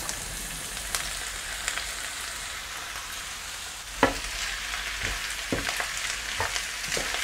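A frying pan of sautéed white cabbage sizzles steadily as drained Fleckerl noodles are tipped in. About four seconds in there is a sharp knock, then a wooden spatula stirs the noodles in with light scrapes and knocks against the pan.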